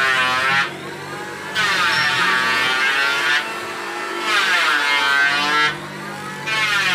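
Hollow-chisel mortising machine cutting a mortise in a timber beam. The motor hums steadily, and each plunge of the chisel and auger into the wood brings a louder whine that sags in pitch and recovers. It plunges about three times, each plunge one to two seconds long, with short quieter pauses between.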